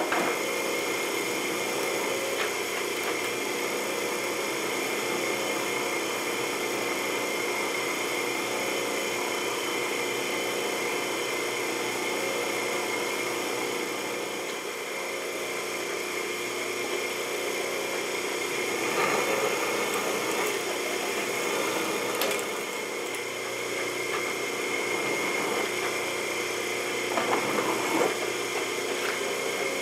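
Drill press running steadily with a steady hum and whine, its bit being fed down to drill a hole in a one-inch square metal bar.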